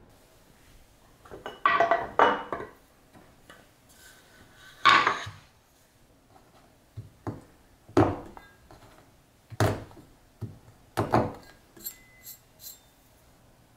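Kitchenware being knocked and set down on a counter, then a cleaver chopping a bar of dark chocolate on a wooden cutting board: three heavy chops roughly a second and a half apart, followed by a few light clinks near the end.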